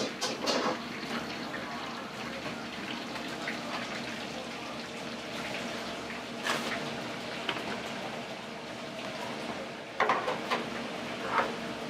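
Running water from a kitchen tap, a steady rush, with a few sharp clinks about six and a half seconds in and again around ten seconds.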